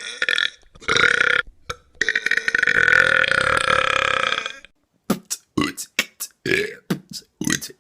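A person belching loudly on purpose: two short burps, then one long, steady burp of about two and a half seconds, followed by a quick string of short burps.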